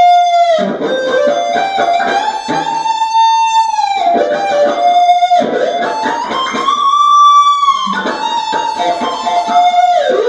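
Electric guitar playing a lead solo high on the neck in F major pentatonic: long held notes, quick runs between them, and string bends, with a bend up to a long held high note about six seconds in that is let back down near eight seconds.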